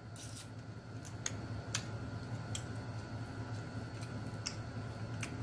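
Eating crab and shrimp by hand: about half a dozen scattered sharp clicks of shell and mouth as meat is picked out and eaten, over a steady low hum.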